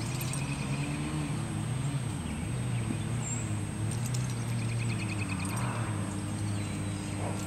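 A steady, low engine-like drone, its pitch wavering slightly, with a bird's trill heard twice.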